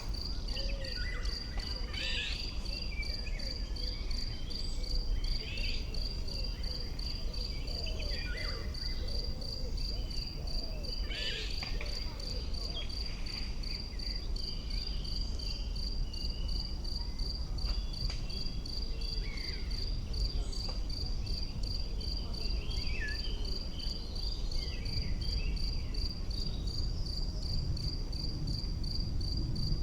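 An insect chirping without a break in an even pulsing rhythm, a few high pulses a second, with scattered short chirps and whistles over a low outdoor rumble.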